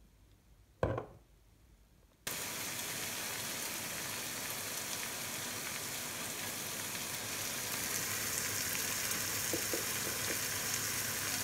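A single sharp knock about a second in, then, starting abruptly about two seconds in, the steady sizzle of pork belly slices frying in a pan.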